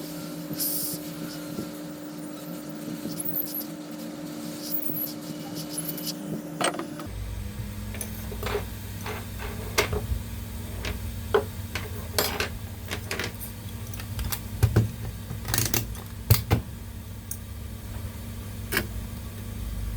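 Scattered light metallic clicks and taps of small hand tools on a laptop motherboard, over a steady electrical hum whose pitch changes about seven seconds in.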